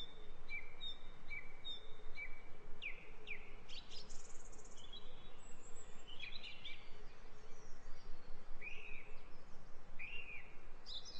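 Small birds singing: a quick repeated two-note chirp for the first couple of seconds, then scattered chirps and short down-slurred whistles, over a steady outdoor background hiss.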